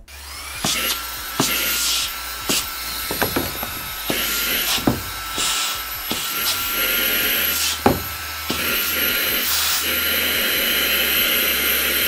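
Xiaomi Mi Vacuum Cleaner Mini handheld vacuum running with a steady high whine and a hiss of air as its nozzle sucks onto a cardboard box to lift it. A few sharp knocks come as the box bumps against the nozzle and the table, the loudest near the end.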